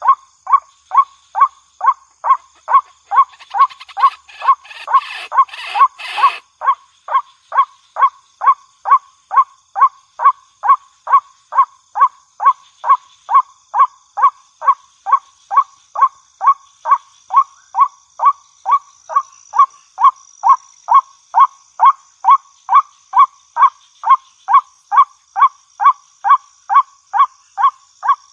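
White-breasted waterhen calling: a monotonous, croaking 'ruak' note repeated evenly about twice a second. A burst of rough noise overlaps the calls from about three to six seconds in.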